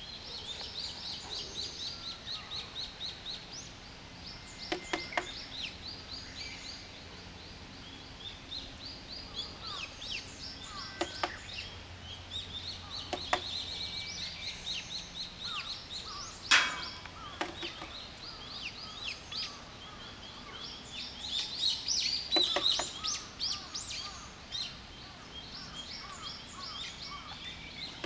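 Wild birds chirping in quick, high-pitched runs of notes, with a few sharp knocks scattered through, the loudest about two-thirds of the way in.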